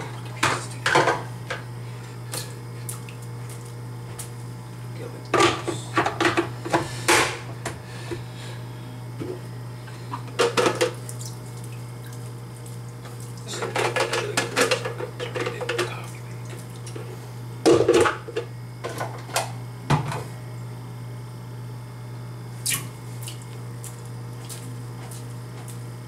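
Plastic parts of a drip coffee maker, the filter basket and carafe, clattering and knocking against each other and the counter as they are handled and set back in place, in scattered bursts. A steady low hum runs underneath.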